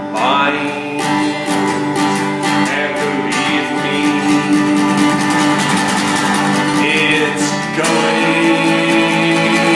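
A man singing while strumming chords on an acoustic guitar, a steady strum under sung phrases.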